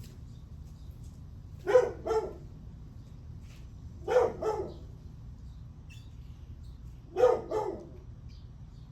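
A dog barking in three bouts of two quick barks each, about two and a half seconds apart, over a steady low rumble.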